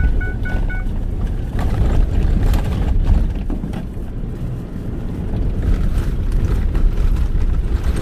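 Cab of a pickup truck driving over a rough beach: a heavy, steady low rumble with scattered knocks and rattles from the bouncing. A repeating electronic warning beep sounds until about a second in.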